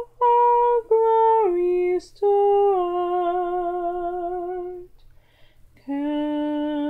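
A woman's voice singing a slow hymn melody unaccompanied, in long held notes with a slight waver. A quick breath comes about two seconds in, and a pause of about a second comes near the end.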